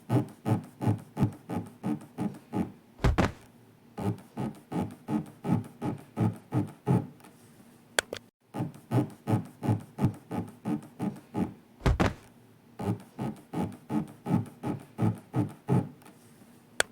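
Rhythmic rubbing, scraping sound effect, about three strokes a second in runs of three to four seconds, standing for an elevator floor scraping along an inner wall. A deep heavy thud comes about three seconds in and again about twelve seconds in. Sharp clicks come about eight seconds in and near the end.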